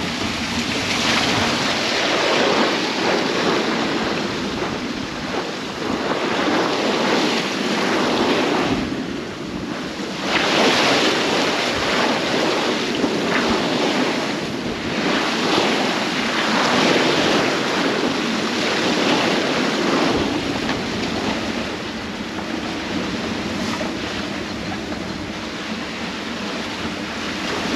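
Steep, short sea waves rushing and breaking around a small sailboat's hull in over 20 knots of wind, with wind buffeting the microphone. The noise swells and eases every couple of seconds, with a short lull about nine seconds in.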